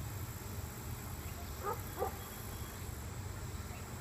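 Two short animal calls, about a third of a second apart, a little under halfway through, over a steady low rumble.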